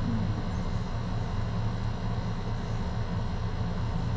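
A steady low rumble, with no break or change.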